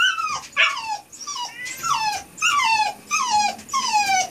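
Dog whining from the bathtub, a run of about eight short falling whines, roughly two a second. It is distressed and afraid to jump out of the tub.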